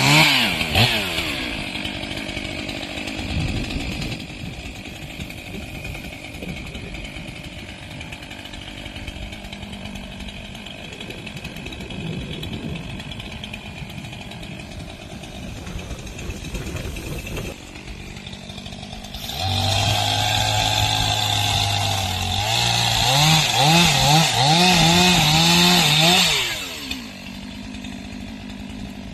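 Chainsaw running at a low idle after a loud rev at the very start, then revved hard for about seven seconds from around twenty seconds in, its pitch climbing and wavering, before dropping back to idle.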